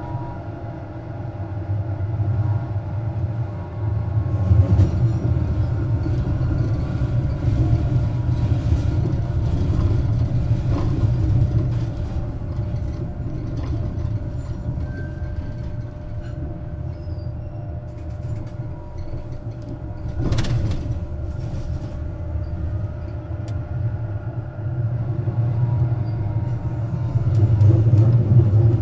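Duewag M6D articulated tram running, a steady low rumble with faint whining tones that grows louder about four seconds in and again near the end. A single sharp knock comes about twenty seconds in.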